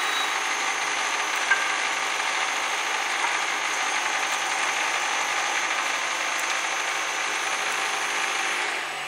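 Cosen CNC wood lathe turning a wooden stair baluster: a steady mix of cutting noise and machine running, with a thin high whine. Near the end the whine stops and the sound drops.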